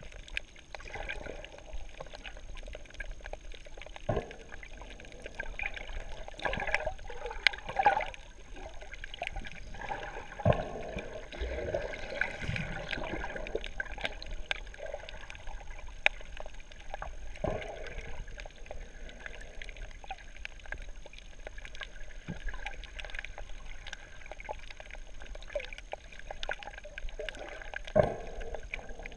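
Muffled underwater sound of a scuba dive: bubbling and gurgling from the diver's breathing, swelling in bursts. A few sharp clicks come through, the loudest near the end.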